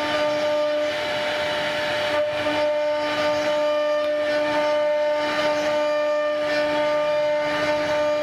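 CNC router spindle running with a steady high whine while its bit carves a relief pattern into a wooden door panel, with the noisy hiss of the cutter cutting the wood.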